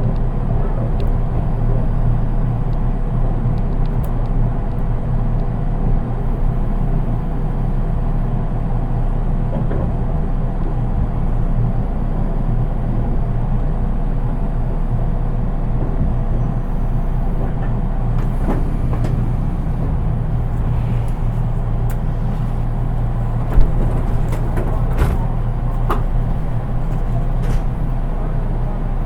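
Steady hum of a JR East 183 series electric train's onboard equipment, heard inside the car while the train stands at its terminus, with a steady tone that fades out about halfway through. A few light clicks come later, and there is one sharp thump about two-thirds of the way through.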